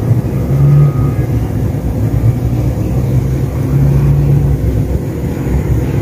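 Loud, steady low rumble.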